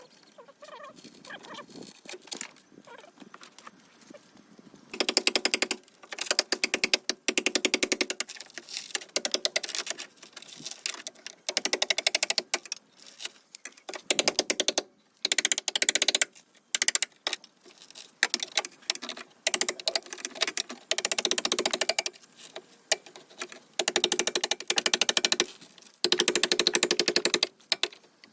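A fast-rattling power tool, such as a needle scaler or air hammer, working on metal in repeated bursts of one to three seconds, starting about five seconds in.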